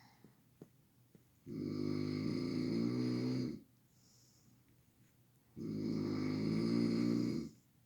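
A sleeping person snoring loudly in a steady rhythm: two long, low snores of about two seconds each, with quiet pauses between breaths.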